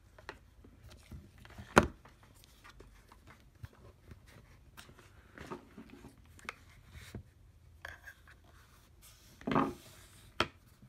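Handling noise from a plastic clamp meter and a charging cable: scattered light clicks, taps and rubbing. There is a sharp click about two seconds in and louder knocks near the end.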